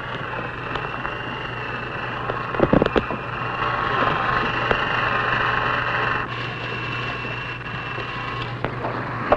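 Steady hiss with a constant low hum, the background noise of an old field-recorded film soundtrack, with a few short knocks about three seconds in.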